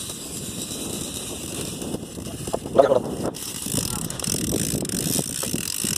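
Fishing reel being cranked in with a fish on the line, over a boat's running engine and wind on the microphone. A short shout comes about halfway through.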